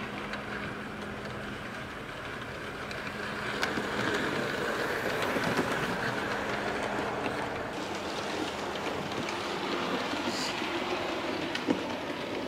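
Hornby OO-gauge 51xx Large Prairie model locomotive and coaches running on model railway track: a steady motor hum with wheel rattle and light clicking, getting louder about four seconds in as the train passes close. The humming comes from a loco that has not yet been oiled.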